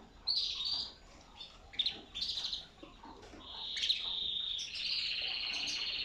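Domestic canaries chirping a few short high notes, then one breaking into a long, rapid rolling trill of canary song about three seconds in.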